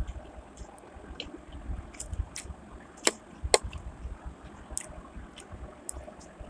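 Person eating chow mein with a fork: chewing and slurping noodles, with scattered sharp clicks of the fork against the plate. The two loudest clicks come half a second apart, about three seconds in.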